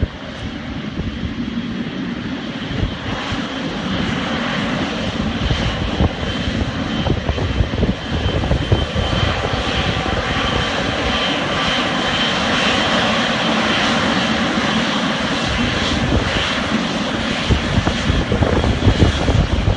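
Jet engines of a Boeing 777 freighter (GE90 turbofans) running at taxi power, a steady high whine over a broad rush, growing louder as the aircraft taxis closer.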